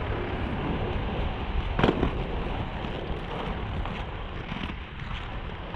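Inline skate wheels rolling over pavement: a steady rumble with sharp clicks, the loudest about two seconds in, and wind noise on the microphone.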